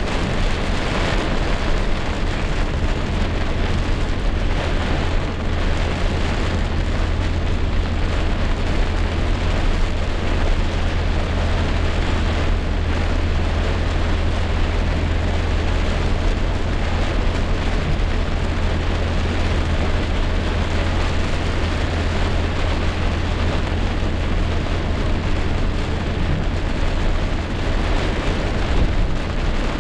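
Heavy rain pouring steadily, with a strong low rumble underneath.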